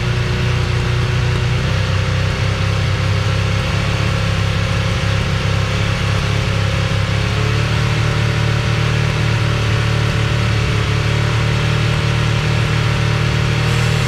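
1979 Honda CB650's air-cooled inline-four running steadily at a fast idle, its pitch rising slightly a few seconds in. It is running for a check of the charging voltage at the battery, which the owner finds too low and blames on a weak rotor and stator.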